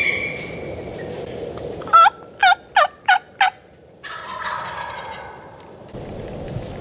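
Turkey yelping: a quick series of five loud notes, each dropping in pitch, about three a second.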